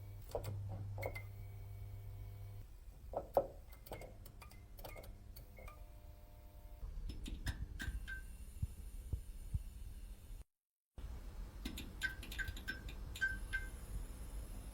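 Neon light tube buzzing with a steady electrical hum, then flickering with irregular clicks, crackles and short high pings. The sound cuts out for about half a second two-thirds of the way through.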